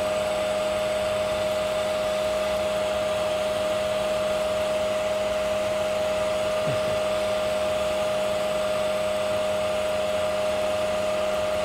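Small handheld torch running steadily while heating heat-shrink tubing over a crimped network cable plug: an even hiss with a steady whistling tone in it.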